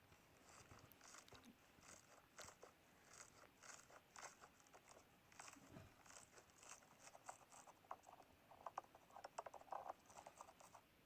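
Slime being squeezed and poked by hand: quiet crackling and clicking in quick little clusters, getting busier toward the end.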